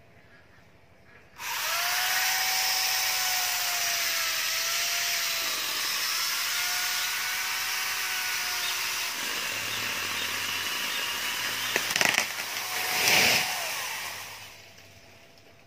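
Electric angle grinder rigged as a saw starts about a second and a half in and cuts steadily into a mango trunk, its whine sagging and recovering under load. About twelve seconds in the trunk cracks, the tree crashes down through its branches, and the tool runs down.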